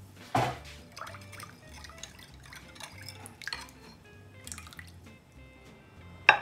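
Metal spoon stirring a warm milk, yeast and sugar mixture in a glass bowl: a few light clinks and liquid splashes. Near the end a plastic bowl is set down with one sharp knock.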